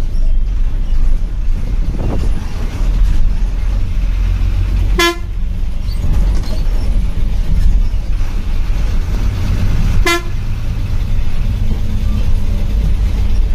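A bus engine runs with a steady low rumble, heard from the driver's cabin. Two short horn toots come about five seconds apart, near the middle of the stretch.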